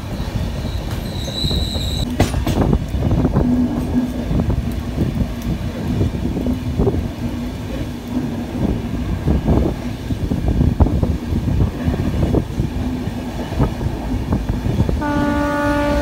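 Passenger train running, heard from on board: a steady rumble of wheels on track with irregular clicks over rail joints and a brief high squeal about a second in. The train's horn starts sounding near the end.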